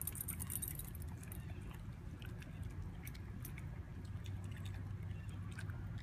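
A dog's metal collar tags jingling briefly at the start, then scattered small clicks and crunches as the dog mouths and chews cicadas off the patio, over a steady low hum.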